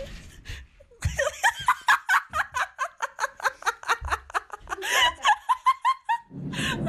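A person laughing hard in a long run of quick bursts, about five or six a second, with a short break near the end before the laughter starts again.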